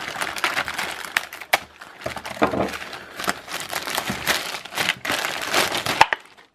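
Mail package being unwrapped by hand: continuous crinkling and rustling of the packaging, stopping shortly before the end.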